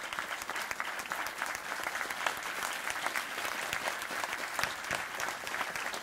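Audience applauding: many people clapping steadily.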